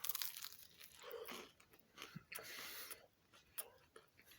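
A person chewing a mouthful of Philly cheesesteak Hot Pocket, with faint wet mouth noises and small crunches, quieter toward the end.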